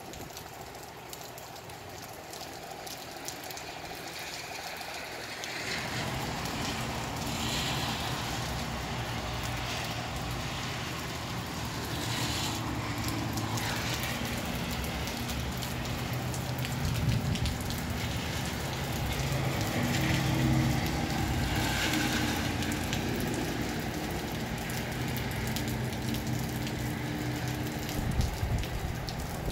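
Steady rain falling, with water dripping off the roof eaves. A low rumble comes in about six seconds in and stays, and a few brief swells of rushing noise rise over it.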